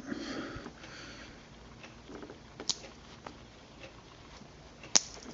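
Handling of metal multi-tools: soft rustling, a faint click, then a sharper click near the end, as tools are closed, put down and picked up.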